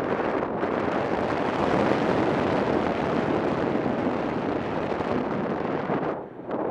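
Wind rushing over the microphone of a camera on a paraglider in flight: a loud, steady buffeting rush that drops away briefly about six seconds in.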